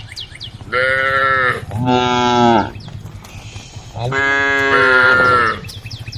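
Cows mooing: two overlapping long calls in the first half and two more overlapping calls about four seconds in, each about a second long. Fast, regular high chirping runs underneath at about five a second.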